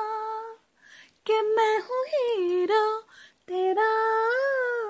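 A woman singing solo with no accompaniment: three phrases split by short breaths, the last a long held note that rises and falls in pitch.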